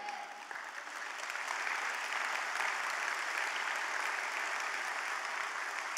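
Congregation applauding, swelling over the first two seconds and then holding steady.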